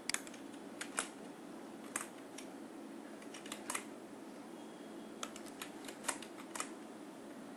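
Scattered light clicks from computer input devices while on-screen writing is erased, about a dozen at irregular intervals, over a faint steady hiss.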